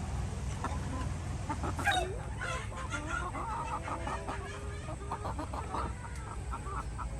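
Chickens clucking, many short overlapping calls over a steady low rumble, with a sharp knock about two seconds in.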